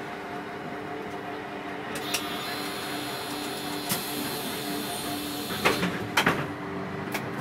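City bus engine idling with a steady hum. From about two seconds in there is a hiss of air, and near the end a cluster of loud clunks and clicks from the pneumatic doors closing.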